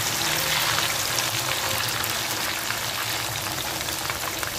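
Pounded green chili sambal sizzling and crackling steadily in hot oil in a frying pan.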